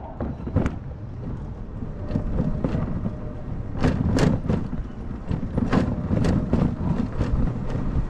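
Wind buffeting a helmet-mounted action camera's microphone, with road rumble from a ride on an electric scooter. Irregular knocks and rattles break through, the loudest about four and six seconds in.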